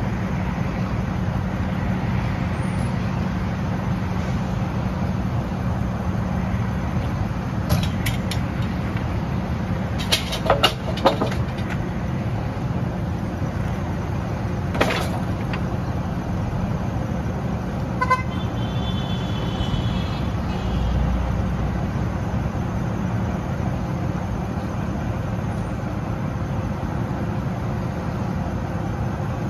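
Mack MRU garbage truck's diesel engine running steadily with a low hum, with a few sharp knocks and clanks from the Heil rear-loader body, a cluster of them about ten seconds in. About two-thirds through comes a short high-pitched tone.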